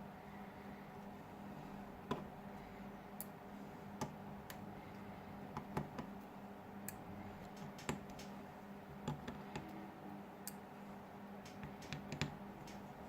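Faint, irregular light clicks and taps of a small T5 Torx screwdriver and tools working on a smartphone's small screws and parts, over a faint steady hum.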